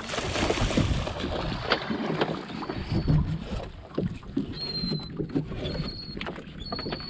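A gillnet pulled in by hand over the gunwale of a fiberglass fishing boat, with water sloshing and splashing at the hull and the net rustling and knocking against the side.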